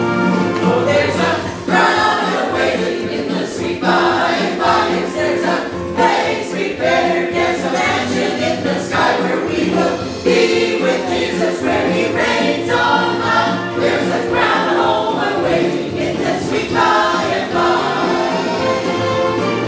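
Group of voices singing a hymn together over steady held accompaniment.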